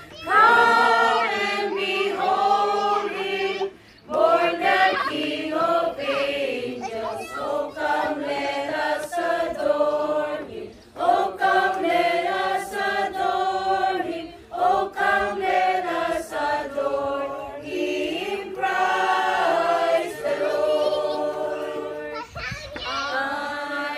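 A group of men and women singing together from song sheets, choir-style, in phrases several seconds long with brief breaks for breath between them.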